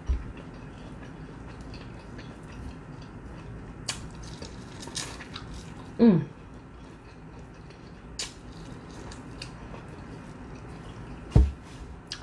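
Close-up wet eating sounds of corn on the cob being bitten and chewed: scattered small smacks and clicks. A short falling vocal hum about six seconds in, and a thump near the end.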